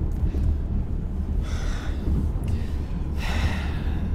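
A person breathing heavily through the mouth, two long breaths about a second apart, over the steady low rumble of a car cabin on the road.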